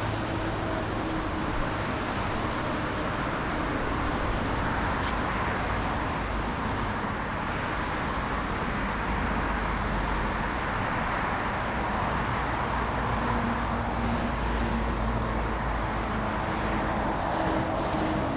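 Steady roar of airliner jet engines at the airport, with gusty wind on the microphone, swelling gently midway.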